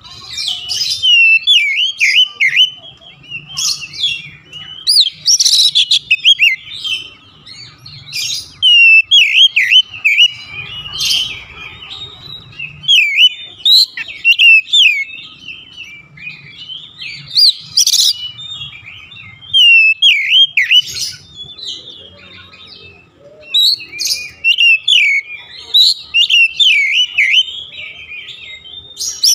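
Oriental magpie-robin singing a long, varied song of quick sweeping whistles mixed with harsh chattering notes, in loud phrases a second or two apart.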